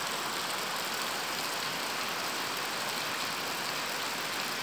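Heavy rain pouring on a dirt yard, puddles and trees: a steady, even hiss.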